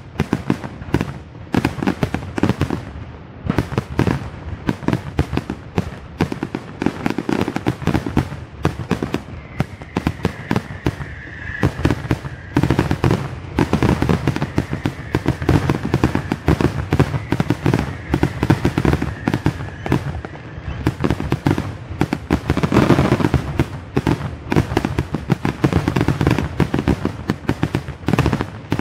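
Aerial fireworks display at full barrage: rapid, overlapping shell bursts and pops, many a second, without a break. A faint steady high tone runs under the bursts from about ten seconds in until about twenty.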